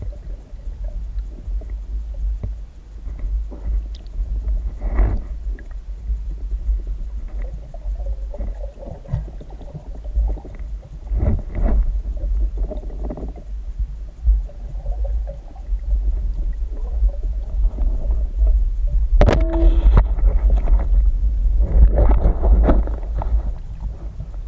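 Muffled underwater noise heard through an action camera's waterproof housing: a steady low rumble of water with scattered soft knocks and gurgles. About 19 seconds in there is a sharp knock, and denser clattering follows.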